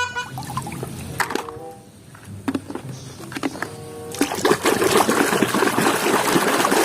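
Water running and splashing over a plastic toy vehicle as it is rinsed of mud, quieter with scattered clicks at first, then a loud, steady rush from about four seconds in.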